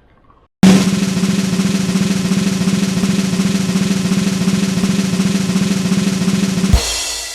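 Snare drum roll sound effect, starting suddenly and running for about six seconds, ending with a single crash that rings out and fades.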